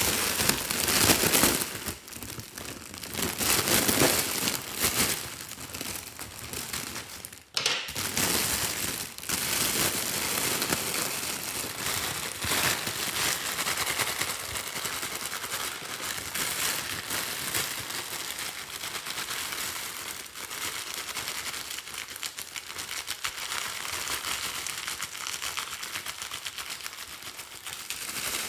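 Thin metallic foil crinkling and rustling as it is squeezed and crumpled by hand. The sound is continuous, louder in the first few seconds, and breaks off sharply for a moment about seven and a half seconds in.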